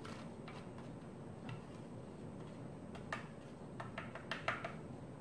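Light plastic clicks and scraping as a flat card is swept and tapped across a plastic capsule-filling tray, working moringa powder into the capsules. A few faint clicks come first, then a quicker run of sharper clicks about three to four and a half seconds in.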